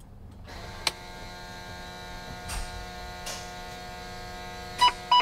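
Class 8 truck's electrics coming on as the ignition is switched on: a click, then a steady electric hum, and two short beeps near the end.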